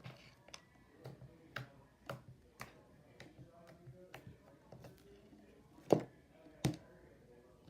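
Slime being kneaded and squeezed by hand as water is worked into it, giving off sharp clicking pops roughly every half second, with two louder pops near the end.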